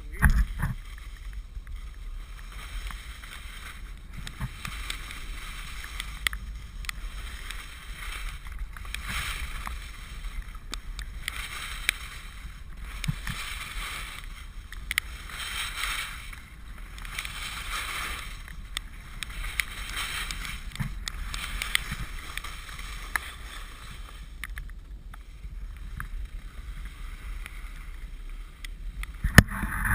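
Telemark skis hissing and scraping over soft, wet snow through a run of turns, the hiss swelling about every two seconds, over a steady low rumble of wind on the GoPro microphone. A thump right at the start and another near the end.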